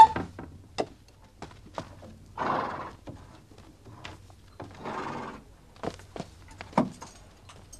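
Horse in a stall: a short neigh at the start, then two breathy snorts a few seconds apart, with scattered knocks of hooves on wood and floor.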